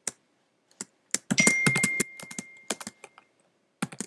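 Keys on an old MacBook's built-in keyboard being typed in quick, irregular keystrokes. A single ringing ding sounds about one and a half seconds in and fades away over nearly two seconds.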